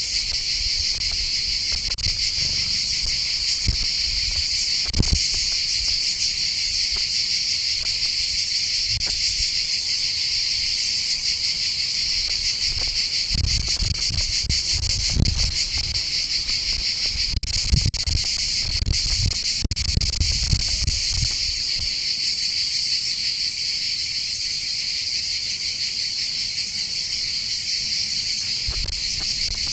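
Steady, dense chorus of insects such as crickets or cicadas, a continuous high shrill with no pauses. Scattered low thumps and rumbles come and go, clustered about halfway through.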